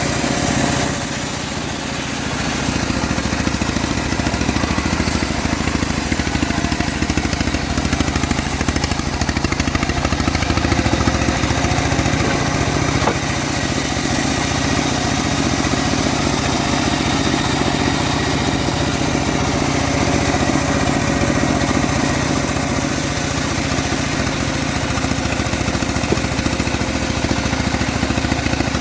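Homemade bandsaw mill running: a steady engine drone that drives the saw, with a brief dip in level about a second in.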